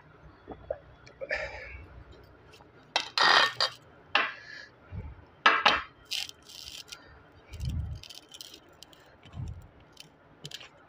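Stainless steel tumbler, glass jar and steel thali plate clinking, knocking and scraping on a tabletop as they are set down and moved about. Several sharp clinks come a few seconds in, and softer dull knocks follow near the end.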